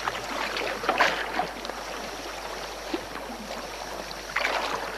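Whitewater river rushing and splashing around a raft, with louder splashes about a second in and again near the end.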